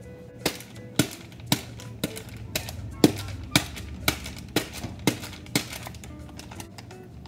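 Background music with a steady clicking beat of about two strokes a second over a low hum and short held notes.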